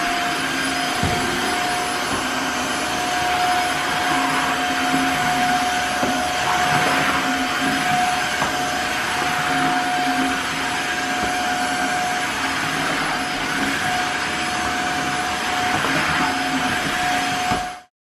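Tineco cordless wet-dry floor cleaner running on a tile floor: a steady motor whine at one pitch over rushing suction. It cuts off suddenly near the end.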